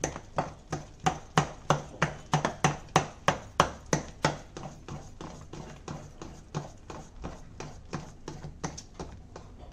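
Rhythmic wet slaps, about three a second, of a hand beating thick ground urad dal batter in a steel bowl, whipping air into it for vadas. The strokes grow softer in the second half.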